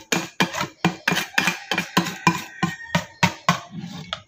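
Wire whisk beating mayonnaise in a stainless steel bowl, the wires clanking against the metal about three times a second in an even rhythm.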